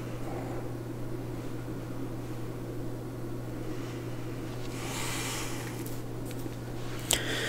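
Quiet room tone: a steady low hum with faint hiss. A brief soft hiss comes about five seconds in, and a single click near the end.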